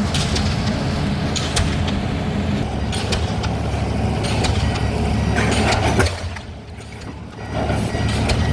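Pile-driving rig's engine running steadily under sharp, evenly spaced blows of a DD65 diesel pile hammer on a concrete pile, about one every second and a half. About six seconds in the sound drops away for just over a second, then comes back.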